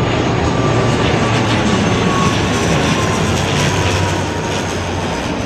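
ATR 72-500 turboprop airliner passing low overhead on approach, its two Pratt & Whitney Canada PW127 turboprops and propellers giving a steady drone with a thin whine that slowly falls in pitch. The sound eases slightly near the end.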